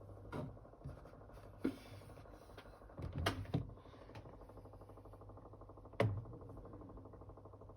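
Panasonic NA-F60B13 top-loading washing machine running with a steady low hum, broken by sharp clicks and knocks, two of them close together a little after three seconds in and a louder one about six seconds in. This is the quiet abnormal noise the machine developed within its first year and that was later cured by a parts replacement.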